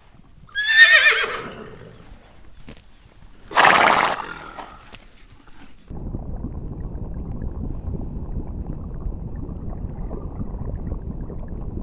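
A horse whinnying once, a quavering call that falls in pitch, then a short loud breathy blast about three and a half seconds in. From about six seconds a steady low rumbling noise takes over.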